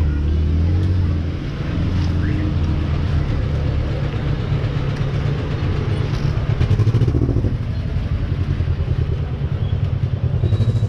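A motor vehicle's engine running close by: a steady low rumble with a fast, even pulse, a little louder in the second half.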